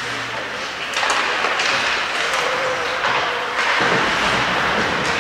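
Ice hockey play in an indoor rink: a steady hiss of skates scraping the ice with occasional knocks of sticks and puck. The noise gets louder about a second in.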